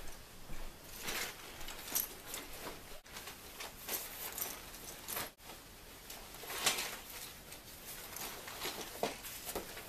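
Fabric backpack being handled and rummaged through: irregular rustling and scraping, with a few sharper scrapes around four and seven seconds in.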